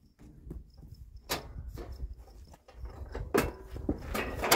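Knocks, clunks and rattles of a riding lawn tractor's body and frame as it is tipped up onto its back end by hand. One sharp knock comes a little over a second in, and several more come in the last second and a half.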